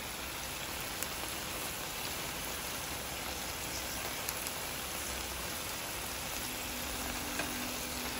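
Chicken breasts frying in oil in a pan, with a steady sizzle.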